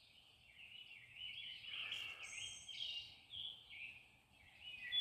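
Songbirds singing faintly, a continuous string of quick rising and falling chirps with a brief high thin note in the middle.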